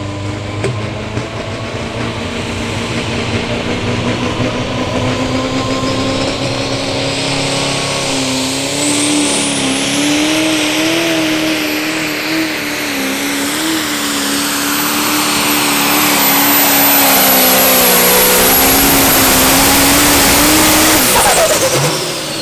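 Massey Ferguson 1150 pro stock pulling tractor's turbocharged diesel engine running flat out under load as it pulls the sled, its pitch wavering and slowly climbing as it gets louder. A high turbo whistle comes in about eight seconds in and holds. Near the end the engine is let off and its pitch falls quickly.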